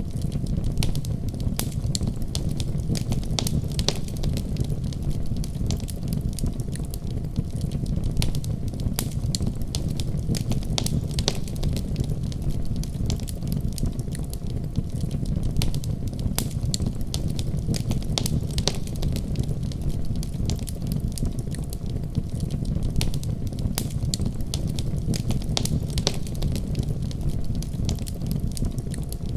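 Wood fire burning in a fireplace: a steady low rumble of flames with sharp, irregular crackles and pops throughout.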